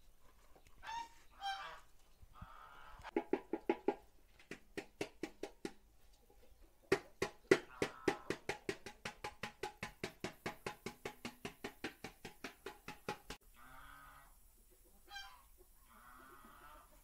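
A knife chopping banana stalk in quick, even strokes, about four to five a second, that stop abruptly. Geese honk and chickens cluck before and after the chopping.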